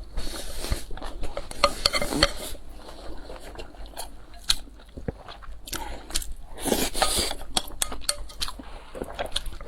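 Close-miked eating sounds: chewing and biting into food, mixed with sharp clicks of utensils against a dish.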